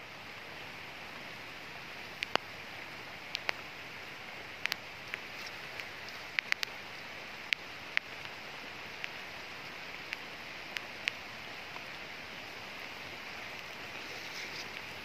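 Steady rain falling on forest foliage, with irregular sharp taps of drops landing close by.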